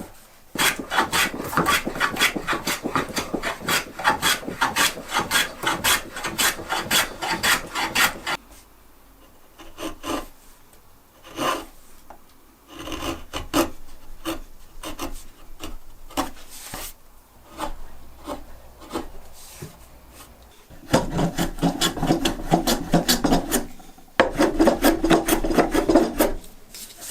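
Wood being worked by hand with an abrasive tool, a file, rasp or sandpaper, in quick back-and-forth scraping strokes, several a second. A steady run stops after about eight seconds, then come scattered single strokes, and two more steady runs follow near the end.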